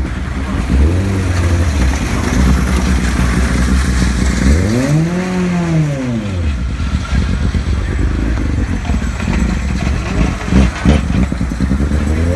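Formula 3 racing car engines idling with a steady low note, the throttle blipped once in a long rise and fall about five seconds in, then several quick revs near the end.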